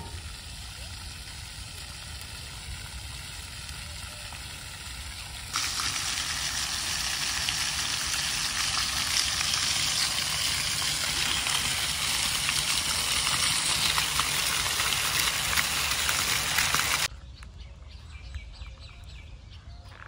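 Floor-fountain water jets splashing onto a tiled plaza: a steady hiss of falling water that gets louder about five seconds in and cuts off suddenly near the end.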